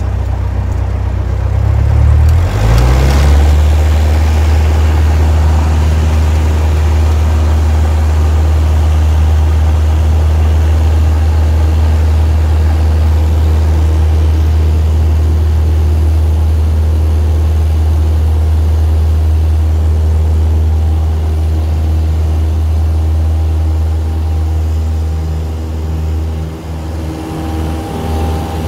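Cessna 172's engine and propeller heard from inside the cockpit, rising quickly to full power about two to three seconds in and then running steadily at full throttle through the short-field takeoff roll. Near the end the sound starts to waver as the aircraft lifts off and climbs.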